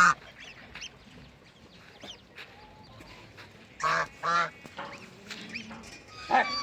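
Adult waterfowl giving loud honking calls, two close together about four seconds in and another near the end. Faint thin high peeps sound in between.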